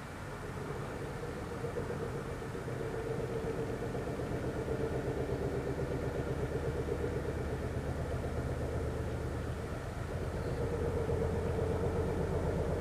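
An unidentified, rapid, pulsating knocking throb carried through the night air, low and engine-like. It swells about a second in, eases a little, and is loudest near the end.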